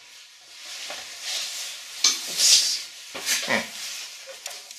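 Rope being pulled through a tie and sliding over itself: a series of short rasping swishes, the loudest about two and a half seconds in.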